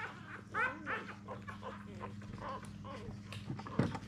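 Four-day-old English Springer Spaniel puppies squeaking and whimpering, many short high cries one after another. A single knock sounds near the end.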